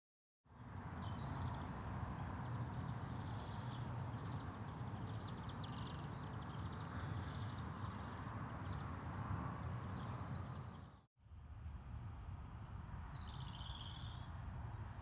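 Outdoor ambience of birds chirping and trilling over a steady low rumble. The sound cuts out for a moment about eleven seconds in, then the same bird-and-rumble ambience resumes.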